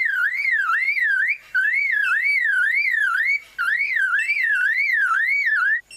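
Superb lyrebird imitating a car alarm: a warbling siren-like tone sweeping up and down about two and a half times a second, in three phrases broken by two short gaps.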